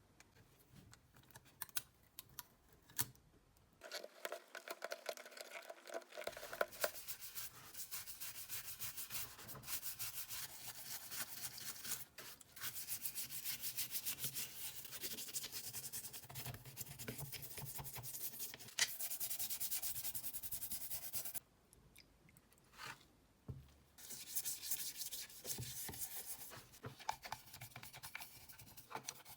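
Hand sanding: repeated rubbing strokes of abrasive on a hard surface, in long stretches broken by short pauses.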